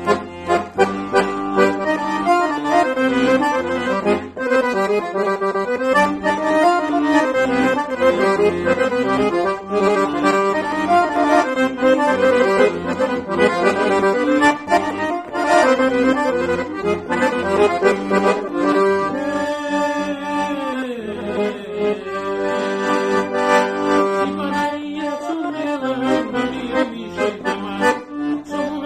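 Weltmeister piano accordion playing a traditional-style tune: a running melody over a steady, rhythmic bass-and-chord accompaniment.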